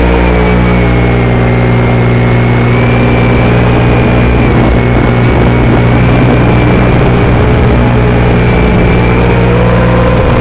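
Loud steady electrical buzz and hum on the FPV video link's audio, with a couple of thin whines drifting slowly up and down in pitch. It is interference noise from the Wizard X220's video transmitter sending mono audio to a FatShark Dominator receiver module that expects stereo.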